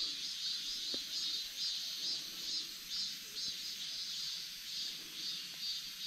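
Insects chirping in a steady rhythm, about two chirps a second, high-pitched over a faint steady hiss.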